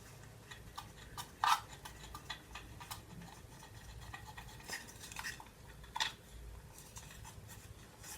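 Scattered light clicks and taps of a wood screw and a drawer pull being handled and fitted to a wooden drawer, the loudest about a second and a half in.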